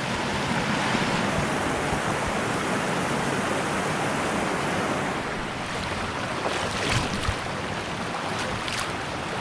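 A rocky mountain stream running high, with a steady rush of water over the rocks. A couple of short knocks come about seven seconds in.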